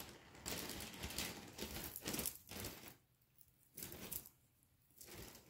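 Jewelry and packaging being handled off-camera: rustling with small clicks and clatters for about two and a half seconds, a pause, then a short burst of rustling and more handling near the end.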